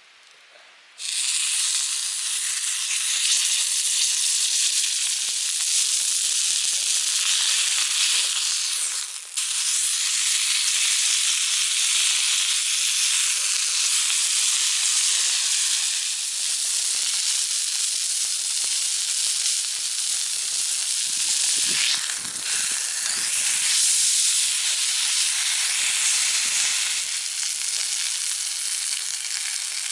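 Meat sizzling in a hot skillet over a campfire, starting suddenly about a second in as it goes onto the pan, then a loud, steady frying hiss with a brief dip near the middle.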